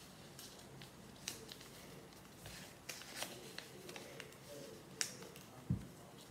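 A sheet of paper being folded and creased by hand on a table: faint rustling with a few sharp crackles as the folds are pressed down, and a dull knock a little before the end.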